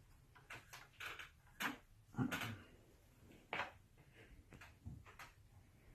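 Faint, irregular clicks and knocks of a hard drive in its mounting brackets being handled and lined up in the drive bay of a Korg D3200 recorder, about eight in all, the loudest about two seconds in.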